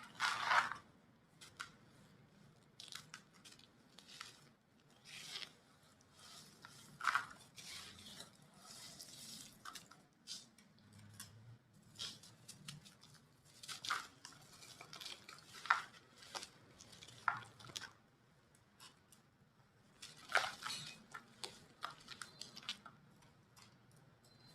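Brittle mini chunks of dried white cement being crumbled: irregular crisp crunches and crackles, with louder crunches at the start, at several points in the middle and about twenty seconds in.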